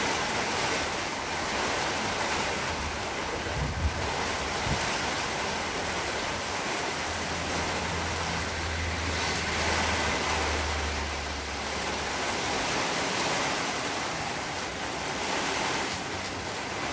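Rain falling steadily, a continuous even hiss. A low rumble sits beneath it for about five seconds near the middle, and a single brief thump comes about four seconds in.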